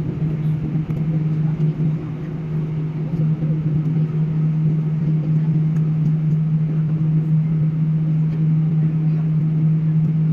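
Airliner engines heard from inside the passenger cabin: a steady drone with a strong low hum. It grows louder a few seconds in and then holds.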